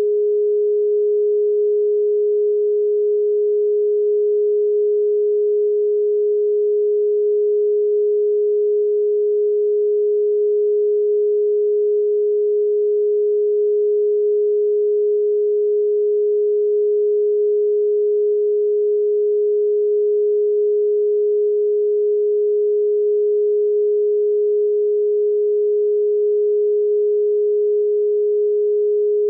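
A single steady pure sine tone of about 400 Hz, held unchanged: a solfeggio tone played for meditation.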